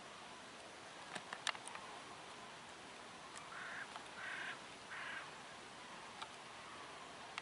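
Ducks on a pond quacking faintly, three short harsh quacks around the middle, over a low steady hiss; a few light clicks come shortly before.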